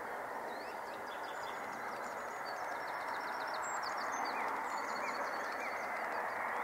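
Steady rushing noise of distant jet aircraft engines, slowly growing louder, with small birds chirping over it.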